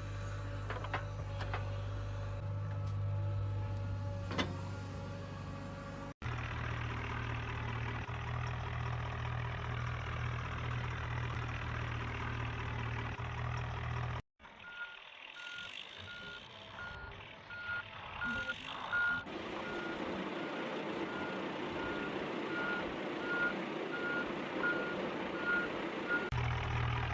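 Small electric motors of RC toy construction vehicles running with a steady hum, with a few clicks and knocks in the first seconds. About halfway the hum stops abruptly and a high reversing beep repeats at an even pace for about ten seconds, before the motor hum returns near the end.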